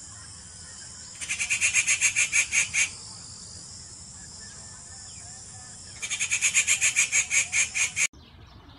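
Cuckoo calling: two bouts of fast, sharp, high notes, about eight a second, each lasting about two seconds, over a steady high hiss that cuts off suddenly near the end.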